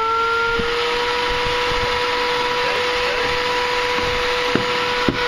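Vacuum cleaner motor running, a steady whine over rushing air as it sucks through the pipes of a homemade vacuum railway; the whine rises slightly and settles just after the start. A few light knocks from capsules being handled near the end.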